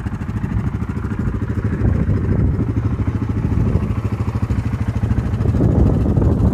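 Side-by-side UTV engine running steadily while driving along a rough dirt road, with a rapid low pulsing, a little louder from about two seconds in.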